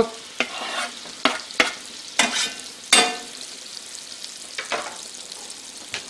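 Diced onion and bell pepper are scraped off a wooden cutting board with a knife into a cast-aluminium pot of hot melted butter. There are several knocks and taps over the first three seconds, a couple of them with a short metallic ring, over a steady sizzle of butter frying the vegetables.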